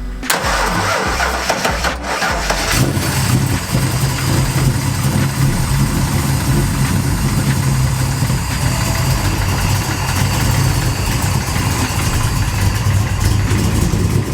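Hot-rodded Fox-body notchback Mustang's engine cranking and firing up about half a second in, catching near three seconds, then running at a steady idle.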